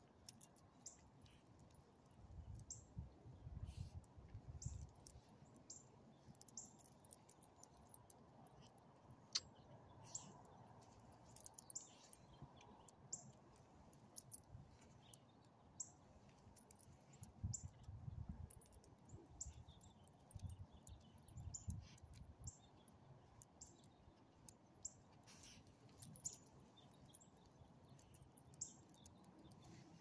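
Near silence outdoors, with faint, short high chirps of small birds scattered all through, and a few soft low rumbles a few seconds in and again past the middle.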